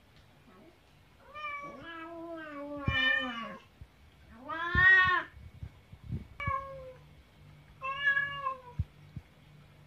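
Domestic cats meowing, about five separate meows, each falling in pitch at its end, the loudest about five seconds in.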